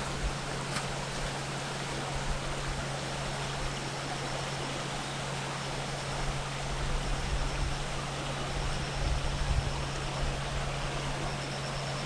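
River water rushing steadily over rocks. Low rumbling bumps come between about six and ten seconds in.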